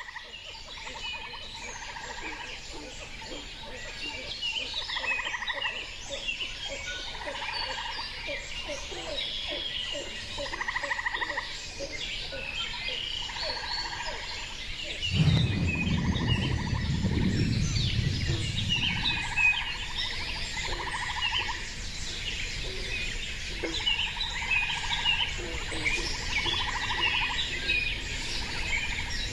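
Natural soundscape recording: many birds chirping and singing together, with a pulsed call repeating every couple of seconds. A low rumble swells up about halfway through and fades over a few seconds.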